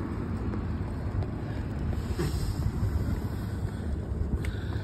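Wind buffeting the microphone of a phone carried on a moving bicycle: a steady low rumble, with a few faint clicks from the bike.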